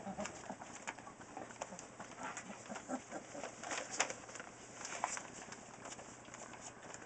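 Newfoundland puppies about three weeks old making faint grunts and whimpers as they play, with scattered small clicks and rustles of paws on the paper lining.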